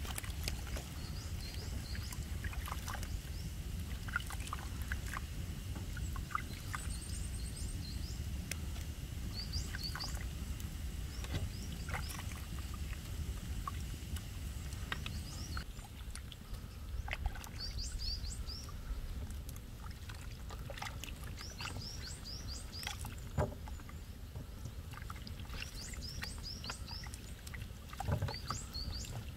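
Outdoor ambience with a steady low rumble, scattered clicks and knocks, and birds chirping in short clusters of high notes.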